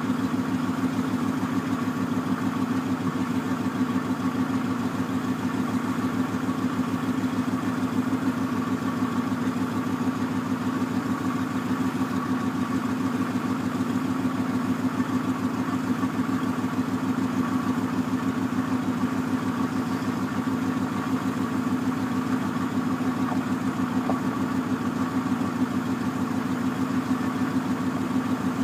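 Yard tractor's diesel engine running at a steady, even speed as it drives the hydraulic hoist that slowly raises the aluminum end-dump box.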